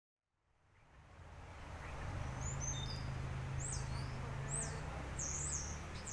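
Outdoor ambience fading in: a small bird giving short, high, slurred chirps again and again, over a steady low hum.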